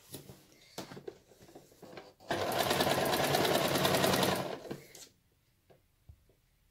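Toyota electric sewing machine running a straight stitch for about two and a half seconds, a fast, even chatter of needle strokes that starts suddenly and dies away. A few faint clicks and rustles of fabric being handled come before it.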